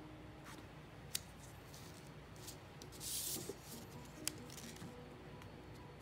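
Quiet handling of construction paper and a squeeze bottle of white school glue on a tabletop: a brief rustle of paper sliding about three seconds in, with a couple of light clicks and taps.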